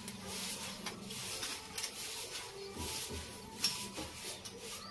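Hand-held metal lemon squeezer pressing small lemon halves: faint rubbing and squishing with a few short clicks as the lever closes and fruit is handled.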